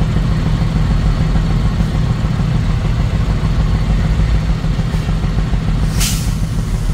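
A moving road vehicle heard while driving: steady low engine and road rumble, with a short hiss about six seconds in.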